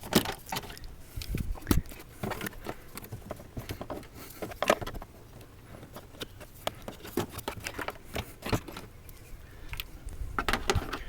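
Irregular clicks, taps and knocks of plastic trim push clips and a grille panel being pried and worked loose on a car's front end, with a low rumble underneath.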